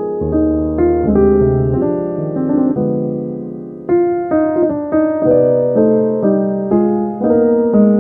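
Piano music: single notes and chords struck about two a second, each ringing out and fading before the next.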